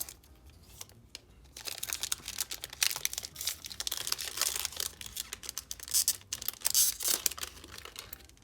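A trading card pack wrapper being torn open and crinkled by hand: a dense run of sharp crackles starting about a second and a half in.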